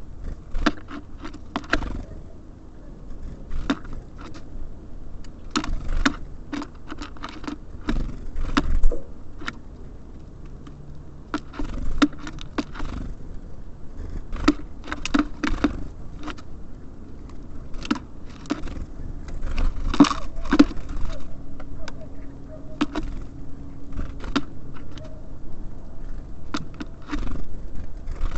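Small birds pecking and hopping at a bird feeder: irregular sharp taps and clicks, several in quick clusters, over a steady low background rumble.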